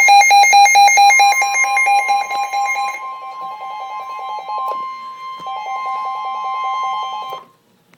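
Weather warning alert: a steady high alarm tone with rapid electronic beeping over it, the alert signal that comes before a severe thunderstorm warning broadcast. The beeping drops out briefly about five seconds in, and both sounds cut off abruptly shortly before the end.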